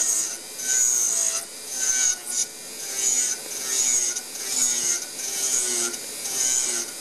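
Dental milling machine's 1 mm roughing bur, turning at about 8,000–10,000 rpm, cutting the wall of a cast metal coping in small passes. It makes a high scraping screech that pulses about once a second over the motor's hum.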